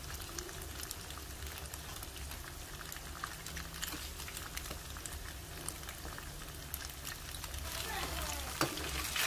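Diced tofu sizzling and crackling as it fries in oil in a pan, turned now and then with a metal spoon. A single sharp click stands out near the end.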